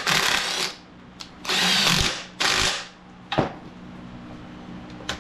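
Impact gun running in short bursts as bolts are run in and tightened: three bursts in the first three seconds, then a brief last hit. A steady low hum sits underneath.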